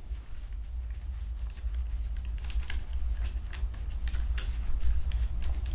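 Irregular light clicks and scrapes of a Tipton chamber cleaning rod being twisted and worked inside a rifle's action, its plastic tip packed with three wadded cleaning patches.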